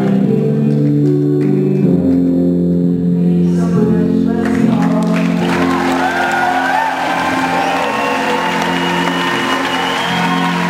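Live music ending on long held chords, then an audience cheering and applauding from about four and a half seconds in, with drawn-out whoops over the clapping.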